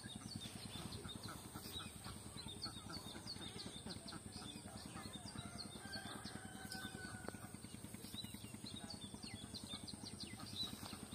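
Small birds chirping in many short, high notes, with chickens clucking, over a steady low rapid pulsing sound.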